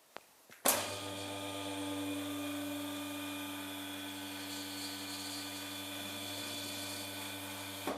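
A motor starts abruptly under a second in and runs with a steady, even hum, stopping right at the end.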